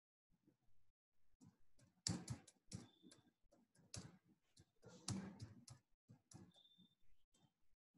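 Faint, irregular keystrokes on a computer keyboard as text is typed, coming in short runs of clicks.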